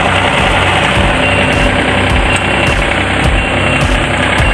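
John Deere 3235C reel mower's engine running at a steady speed, driving the reel cutting units in reverse to backlap (sharpen) the reels against their bedknives.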